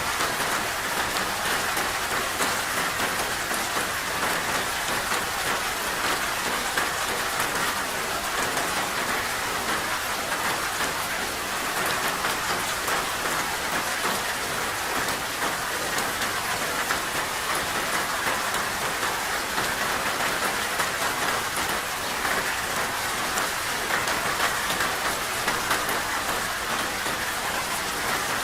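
Steady rain falling: an even hiss with the fine patter of individual drops.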